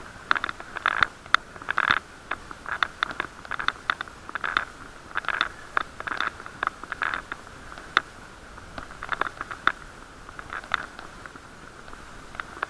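Irregular clicks and knocks, in quick clusters at times, over a steady muffled hiss: riding noise picked up by a bicycle-mounted action camera sealed in a waterproof case as it jolts over the road surface.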